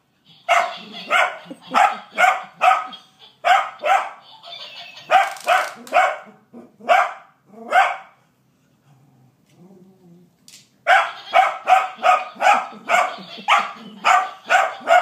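Plush laughing-monkey toy playing its recorded laugh: a run of short, evenly spaced calls, about three a second, all at the same pitch. It stops about eight seconds in and starts again a few seconds later.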